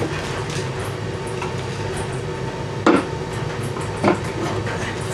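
Two sharp metal clanks, about a second apart, of hand tools striking the hydraulic lift cylinder's mount while working at a stuck roll pin, over a steady low hum.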